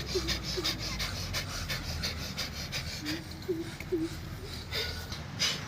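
Bhastrika pranayama, the bellows breath: rapid, forceful breaths pumped in and out through the nose in a quick, even rhythm of several hissing strokes a second. The strokes ease a little midway and come stronger again near the end.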